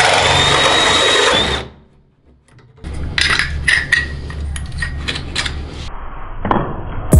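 Cordless drill running a hole saw through a wooden door at steady speed, stopping about a second and a half in. After a short gap come irregular clicks and knocks as the wooden core is levered out of the hole saw.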